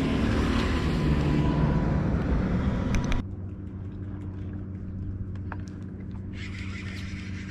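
A boat motor runs steadily with a low hum. A louder rushing noise over it cuts off suddenly about three seconds in.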